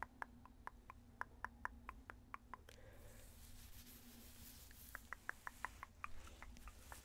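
Rapid dry tongue clicks, about five a second, for the first two and a half seconds. A soft rustle of hands rubbing through hair follows, then another run of tongue clicks near the end.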